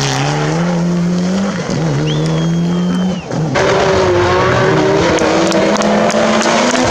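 Rally car engine accelerating hard on full throttle, its pitch climbing through gear changes, with a brief high squeal about two seconds in. An abrupt cut about halfway brings in a second rally car's engine, held high and rising slowly as it comes up a mountain road.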